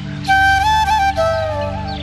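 Background music: a flute-like melody moving in stepped notes over a steady low sustained pad, with a new phrase coming in about a quarter of a second in.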